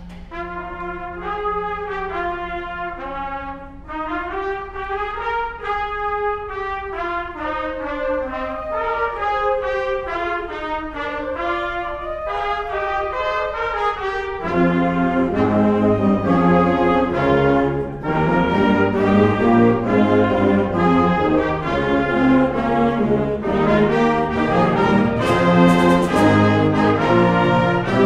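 Symphonic band playing: a flowing melody in several parts that rises and falls, then the full band comes in louder about halfway through, with heavy brass in the low range.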